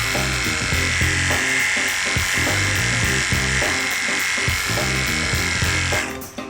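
Background music with a steady beat, over a steady high-pitched whine.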